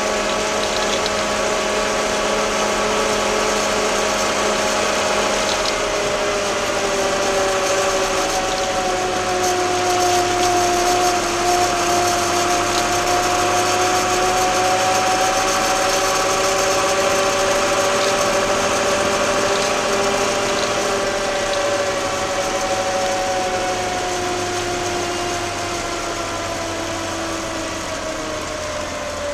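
Case 885XL tractor's diesel engine running under way on the road, a steady drone with a whining tone that drifts slowly up and down, easing off a little near the end as it slows.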